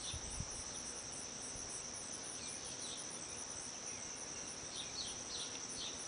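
Steady, high-pitched chorus of insects, with a pulsing trill above a constant whine, and a few faint short falling chirps over it.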